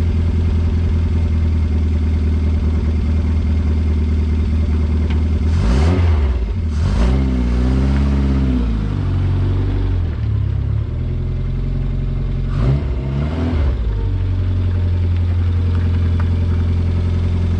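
Reliant 850cc OHV all-alloy four-cylinder engine, fed through an SU HS2 carburettor with a velocity stack, idling steadily and blipped twice: the revs rise and fall about six seconds in and again about thirteen seconds in.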